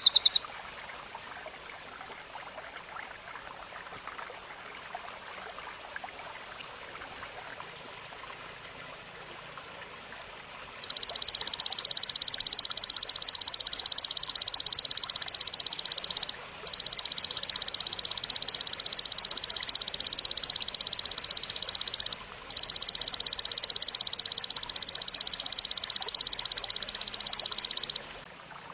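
Belalang, a singing grasshopper, stridulating: a loud, continuous high-pitched buzz of rapid pulses starts about eleven seconds in and breaks off twice for a moment. Before it there is only a faint, steady background hiss.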